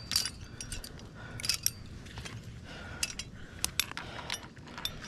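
Metal climbing gear racked on a harness, carabiners and cams, clinking and jangling in irregular light clicks as the climber moves.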